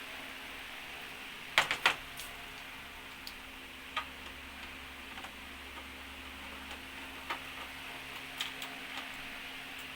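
Sharp clicks of small screws and a screwdriver being handled on a TV's back panel: a quick cluster of three or four louder clicks about one and a half seconds in, then scattered lighter ticks, over a steady hiss.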